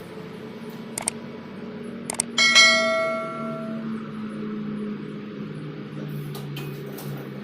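Two light metallic clicks, then a piece of steel struck once, ringing like a bell for about a second and a half before fading, over a steady low hum.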